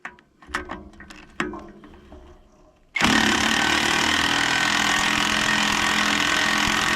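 A few clicks and clinks of tools being handled, then about three seconds in a power impact wrench starts hammering steadily and loudly, loosening the nut on a disc mower's cutter-pod hub.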